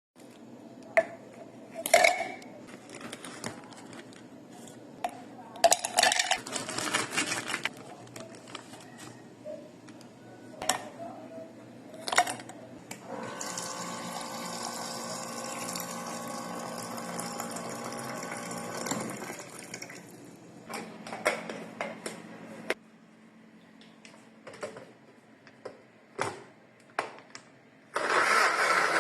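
Kitchen clatter as containers and fruit are handled, with liquid poured steadily into a container for several seconds midway. Near the end a Black+Decker blender's motor starts up and runs loud and steady.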